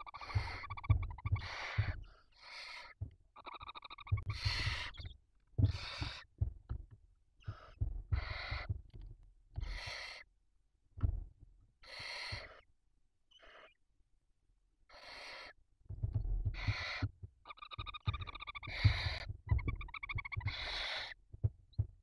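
Barn owl chicks giving their harsh, hissing begging screeches over and over in the nest box, each call about half a second long, roughly one a second with short gaps. Low bumps of the birds shuffling on the nest floor come with some of the calls.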